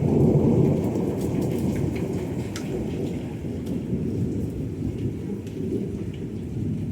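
A long roll of thunder that breaks suddenly, is loudest in its first second and rumbles on for several seconds, with rain falling.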